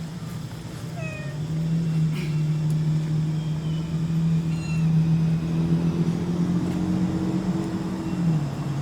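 A steady low motor hum that dips in pitch shortly before the end. A few brief high squeaks sound over it.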